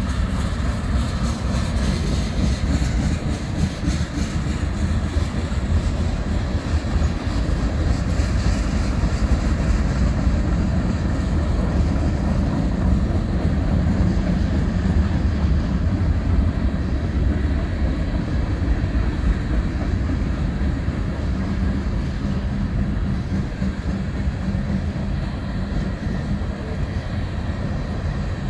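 BNSF mixed freight train rolling past: a steady rumble of freight cars' wheels on the rails.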